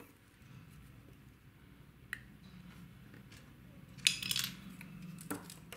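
Small clicks and taps from handling a mini RC car chassis and its small metal parts, with a short, louder metallic clatter about four seconds in as a hand tool is set down on the cutting mat.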